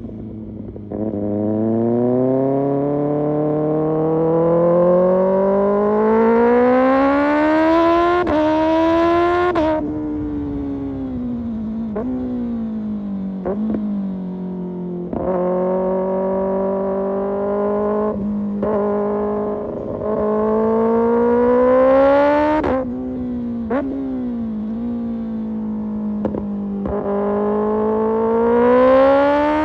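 A Kawasaki ZX-6R inline-four sport bike running through an Arrow Pro Race exhaust, accelerating hard. Its pitch climbs steadily in long pulls and drops sharply when the throttle closes or the rider shifts, with short cracks at several of the drops. The longest pull runs through the first ten seconds and another rises again near the end.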